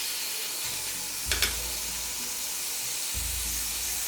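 Chicken pieces sizzling in hot oil in a kadai over a gas flame on full, a steady hiss, with one short scrape of the spatula against the pan about a third of the way in.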